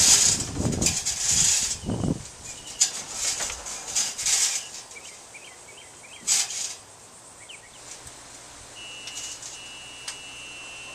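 Aluminium folding loading ramps clattering and creaking under an EZ-GO RXV electric golf cart as it drives up into a pickup bed, loudest in the first two seconds. Then faint bird chirps, a single knock about six seconds in, and a steady thin high tone near the end.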